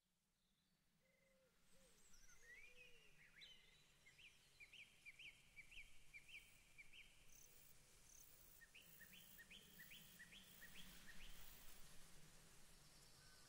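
Faint songbird singing: two runs of short, sharp, repeated notes, about three a second, each run lasting a few seconds.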